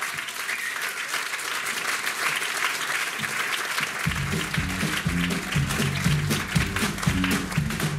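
Audience applauding. About four seconds in, a band kicks in with an electric bass line and drums, and the applause carries on underneath.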